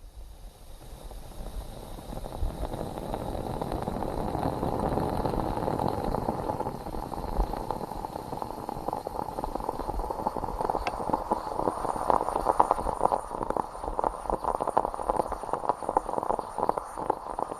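Stovetop moka pot brewing: a bubbling, crackling gurgle that builds over the first few seconds, then turns into a dense sputter of many small pops as the coffee comes up.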